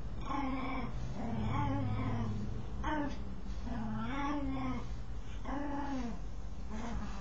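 Dog making a strange, wavering vocal noise while scratching itself: a run of about six drawn-out calls whose pitch bends up and down, some short and one longer near the start.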